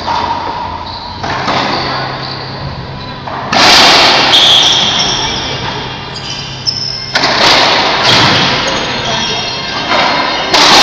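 Racquetball rally: several sharp cracks of the ball off racquets and the court walls, each ringing on in the enclosed court's echo.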